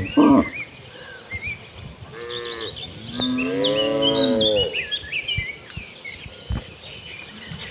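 Cows mooing: a short loud call just after the start, then a longer drawn-out moo from about three seconds in that falls in pitch at its end.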